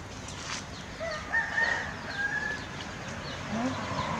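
A rooster crowing once, a drawn-out call starting about a second in.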